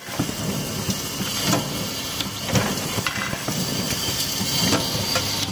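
Automatic 5 mm glass-bulb assembling machine for fire sprinklers running: a steady mechanical noise over a low hum, with irregular clicks and clatter.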